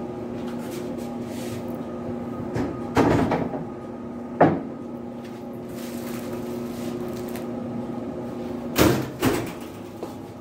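Stainless steel kitchen cabinet doors and metal things being knocked and shut: a clatter about three seconds in, a sharp knock soon after and two more knocks near the end, over a steady hum.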